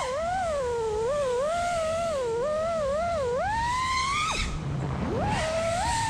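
FPV freestyle quadcopter's brushless motors (Brotherhobby Avenger 2207.5, 2350 kV) and propellers whining in flight, the pitch swooping up and down quickly with the throttle. About four seconds in the whine climbs, then drops away suddenly as the throttle is cut, and comes back about a second later.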